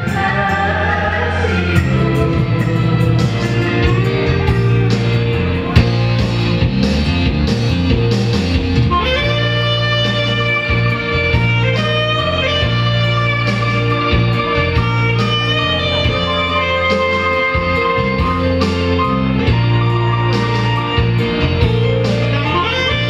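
A saxophone playing a melody over band backing with a steady, repeating bass line. From about nine seconds in the melody moves to long held notes.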